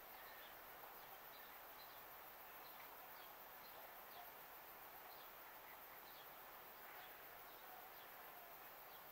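Near silence: faint outdoor background hiss with scattered small bird chirps.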